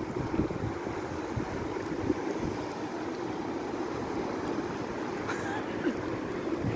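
A fast river rushing through rapids over rocks, a steady rush of water, with wind gusting on the microphone.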